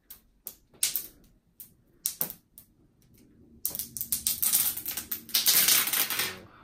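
Clear protective plastic film being peeled off the top of a FlashForge Adventurer 3 3D printer. There are scattered crackles at first, then, a little past halfway, a dense, loud crinkling that lasts for about three seconds as the sheet comes away.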